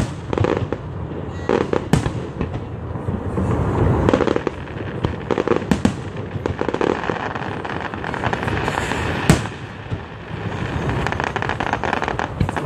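Fireworks display: aerial shells bursting one after another in an irregular string of bangs and booms over a continuous rumble, with one sharp bang about nine seconds in the loudest.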